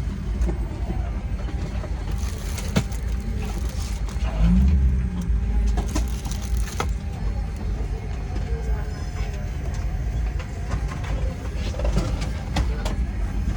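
Steady low rumble of a Boeing 787-9's passenger cabin on the ground, with scattered sharp clicks and two short stretches of hissing rustle.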